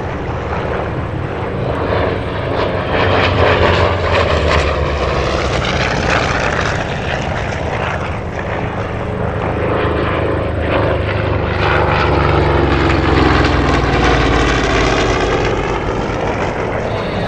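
Propeller aircraft engines running as aircraft fly past, the engine note falling in pitch as each one passes.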